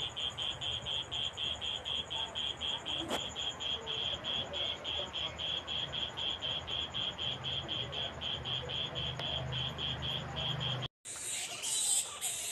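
A high chirping call repeated steadily about four times a second, the call of a small animal such as a frog, cutting off abruptly near the end.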